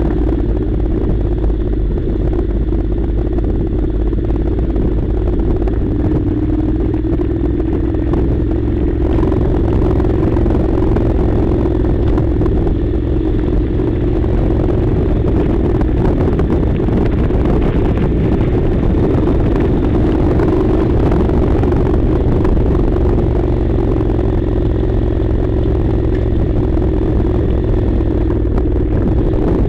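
Honda NC700's 670 cc parallel-twin engine running steadily while the motorcycle is ridden, at a fairly even speed with only small changes in pitch, over a heavy low rumble.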